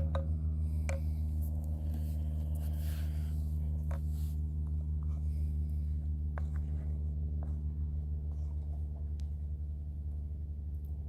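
Background music: a low, steady droning chord, with a few faint clicks scattered through it.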